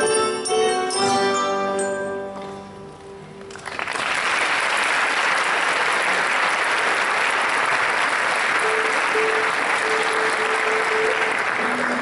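A school ensemble of metallophones and electronic keyboards plays its last bell-like notes, which ring and fade out within the first three seconds. About three and a half seconds in, the audience breaks into steady applause.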